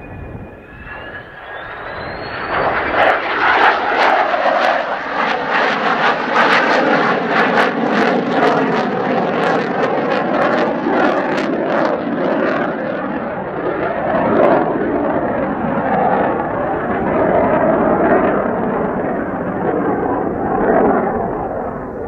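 Mitsubishi F-2's single F110 turbofan: a whine rising in pitch over the first couple of seconds, then a loud, crackling jet roar as the fighter goes past and climbs away, easing off near the end.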